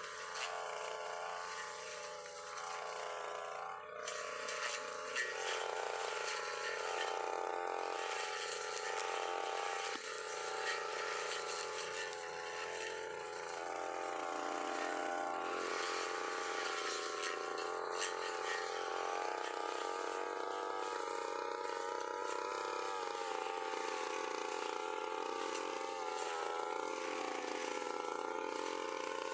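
UM328 brush cutter's small engine running fast while its blade cuts grass, a steady buzz whose pitch shifts a few times as the load changes.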